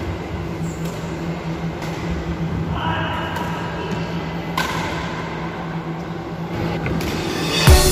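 Steady low hum of an indoor badminton hall, with a few dull thuds of play on court.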